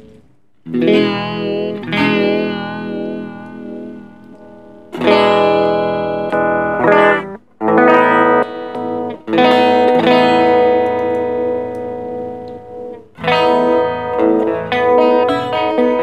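Electric guitar chords played through a TC Electronic Plethora X5 pedalboard's vibe/vibrato modulation effect. Several strummed chords each ring out with a wavering, wobbling pitch.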